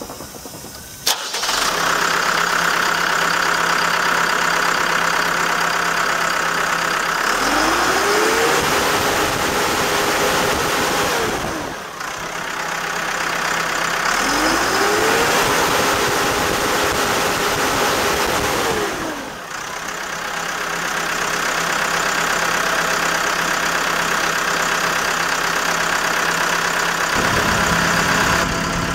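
Caterpillar TL943 telehandler's four-cylinder Cat diesel engine starting almost at once about a second in, then idling. It is revved up twice, each time climbing, holding for a few seconds, then dropping back to idle.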